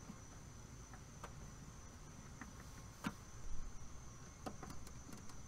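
Insects keeping up a steady, high-pitched chirring in the background. Faint scattered clicks of a screwdriver on the unit's terminal screws sound over it, the sharpest about three seconds in.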